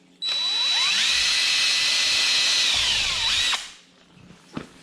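Power drill driving a screw into a wood block: the motor whines up to speed, runs steadily for about three seconds, then winds down and stops.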